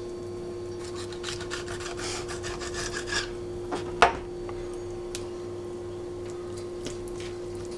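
Knife slicing and scraping along a raw fish fillet on a cutting board while cutting out the center bloodline, with a sharp tap about four seconds in. A steady low hum runs behind it.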